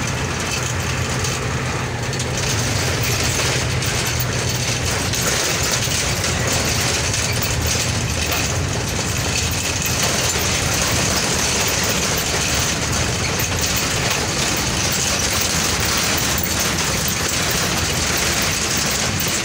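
Steady engine and road noise heard from inside a moving road vehicle's cabin at highway speed. A low engine hum stands out for the first few seconds, then blends into the even road noise.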